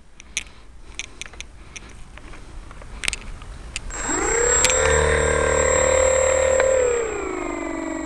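Brushless outrunner motor (BL-2217/9) of an electric RC flying wing spinning up with its propeller about halfway through, rising quickly to a steady whine. Near the end it drops to a lower steady pitch. A few light handling clicks come before it.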